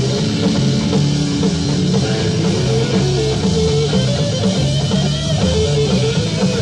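Live hard rock band: electric guitar playing over bass guitar and drum kit, from a 1970 concert recording.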